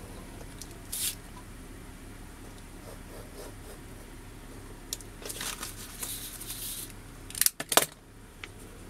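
Utility knife blade scoring through a vinyl sheet on a cutting mat, with scratchy cutting strokes in the middle and a few sharp, loud clicks and crackles shortly before the end as the knife is put down and the cut vinyl is lifted.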